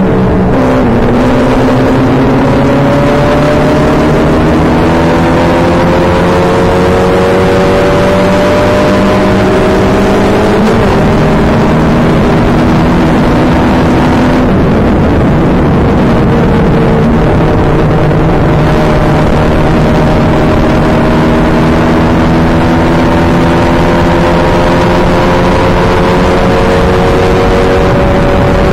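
Open-wheel race car's engine heard onboard under hard acceleration, its pitch climbing slowly. It drops sharply just after the start and again about halfway through, then climbs again and falls off near the end. Heavy wind and road rush sits under it.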